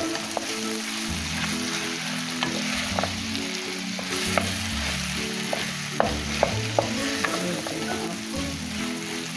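Taro root slices and chicken frying dry in oil and spices in a metal pot, sizzling steadily while being stirred with a wooden spoon. The spoon scrapes and knocks against the pot in scattered sharp clicks.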